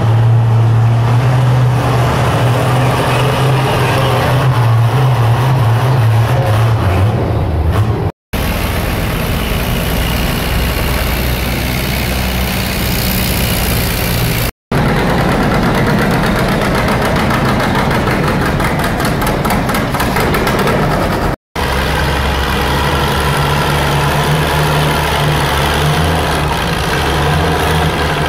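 Antique farm tractor engines running hard while pulling a weight sled, with a strong steady low drone. The sound cuts out abruptly three times where separate clips are joined.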